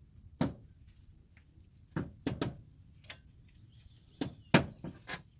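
Sharp metal knocks and clunks, about seven in uneven clusters, as the front strut assembly is shifted and worked loose from the steering knuckle.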